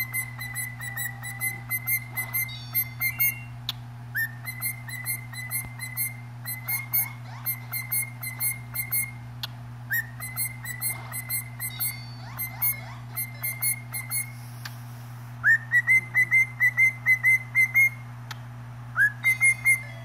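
Cockatiel whistling: runs of short repeated notes, each swooping up into the same high pitch, about three or four a second, with brief pauses between runs and the loudest run a little past the middle. A steady low hum lies underneath.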